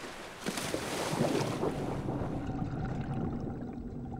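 A scuba diver's splash into the sea from the side of a boat, water churning for a second or two, then the sound turns muffled and underwater with a low steady hum.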